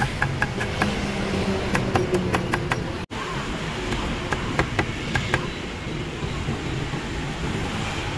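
A meat cleaver chopping grilled pork and herbs on a chopping board: quick, sharp strikes, several a second, that die away about two-thirds of the way through. A steady low rumble runs underneath.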